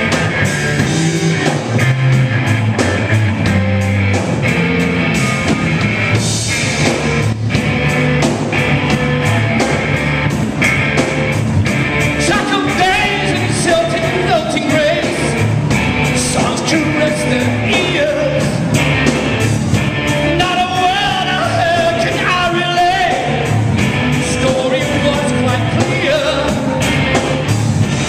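Live rock band playing with electric guitar, bass guitar and drums; a male singer's voice comes in over the band about twelve seconds in and carries on to the end.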